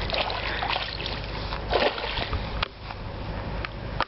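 Hooked pike thrashing and splashing at the water's surface, in a run of splashes with the biggest almost two seconds in, then quieter.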